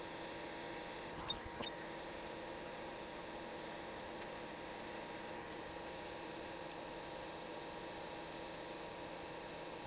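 Steady hiss with a faint electrical hum, and two light clicks about a second and a half in.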